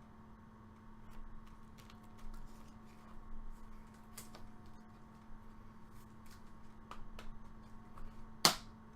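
Baseball trading cards being handled and flipped through, with faint scattered clicks and rustles and one louder card snap near the end, over a steady electrical hum.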